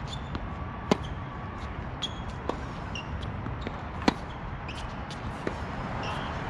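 Tennis rally on an outdoor hard court: two sharp racket-on-ball hits, about a second in and about four seconds in, with fainter knocks of the ball from the far end between them, over steady background noise.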